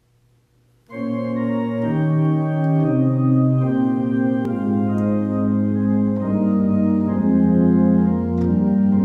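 Organ playing the slow, sustained chords of a hymn introduction, beginning abruptly about a second in, with the chords changing roughly once a second.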